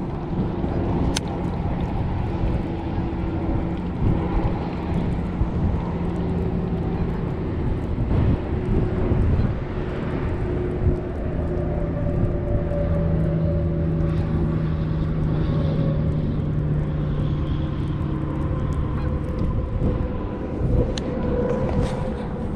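An engine running steadily, a low hum whose pitch shifts slightly about halfway through, over a low rumble, with a couple of sharp clicks.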